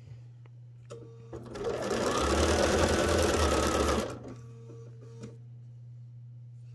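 Bernina electric sewing machine stitching lace onto padded quilted fabric: one run of straight sewing of about two and a half seconds, speeding up as it starts, then stopping. A few faint clicks come before and after it.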